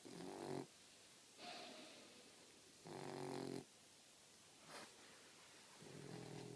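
Boxer puppy snoring in deep sleep: three short, low snores about three seconds apart, with fainter breathy sounds between.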